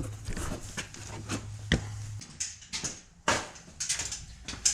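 Irregular knocks, taps and clinks of someone moving about a garage and handling tools while looking for a pair of channel-lock pliers. A low steady hum sounds beneath and stops about two seconds in.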